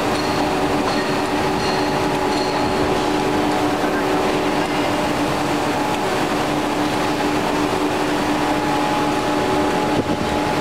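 Rubber-strip production line running: a belt-driven steel drum and rollers turn continuously, giving a loud, even machine drone with a steady hum.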